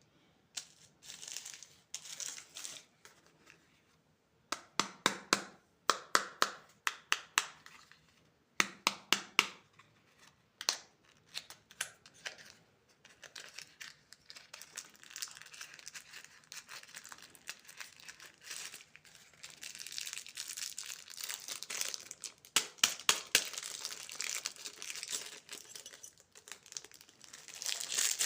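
Plastic candy wrappers crinkling and tearing as candy is unwrapped. Quick clusters of sharp crackles come about five and nine seconds in, and denser, steadier crinkling fills the second half.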